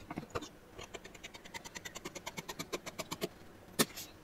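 Tailor's shears cutting through sheets of paper pattern: a quick run of short snips, about six a second, then a single sharper click near the end.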